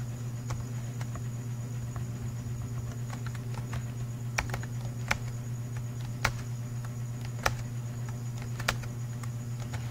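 Computer keyboard keystrokes while code is typed: scattered light clicks, with five sharper clicks about a second apart in the second half, over a steady low hum.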